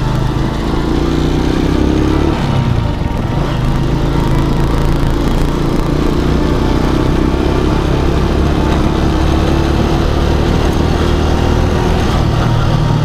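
Motorcycle engine running steadily at low riding speed, heard from the rider's seat.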